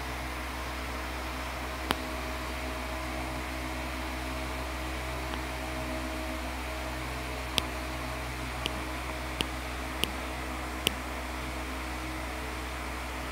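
Steady low hum and hiss of background noise, with a sharp click about two seconds in and a run of five sharp clicks in the second half.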